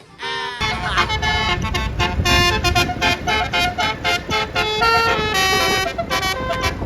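Bus telolet horn, a multi-tone Basuri-type air horn, playing a quick melody of changing notes, with a loud noise underneath that starts about half a second in.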